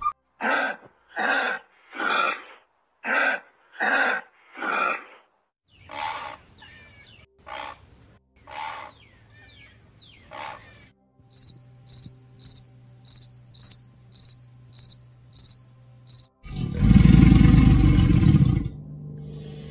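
A run of different animal calls. First come seven short, evenly spaced calls, then a few calls that slide in pitch. Next is a series of about a dozen sharp high chirps at a steady beat over a faint hum. Near the end comes a loud, low rumbling call.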